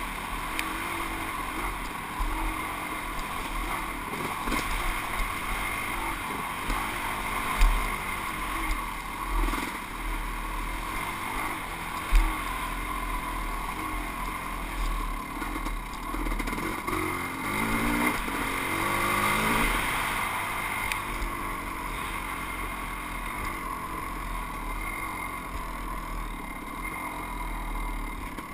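Kawasaki KX500 two-stroke single-cylinder dirt bike engine running under way, its pitch rising and falling as the throttle is worked on the trail. Wind rumble on the helmet-mounted microphone throughout, with two sharp knocks partway through.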